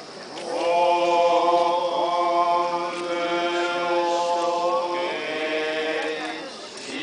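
Tendai Buddhist monks chanting a sutra in long, held notes. The voices come in about half a second in and pause briefly near the end.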